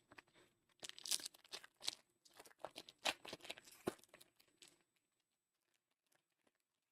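A foil trading-card pack wrapper being torn open and crinkled by hand, in a crackling run of a few seconds that stops about five seconds in.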